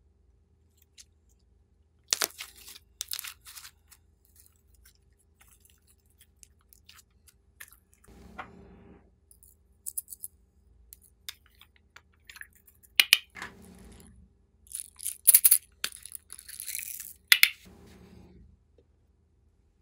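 Hands working glossy slime: bursts of sticky crackles and clicks as it is stretched and pressed, with a few softer squelches in between. The crackling is densest about two seconds in and again in the last third.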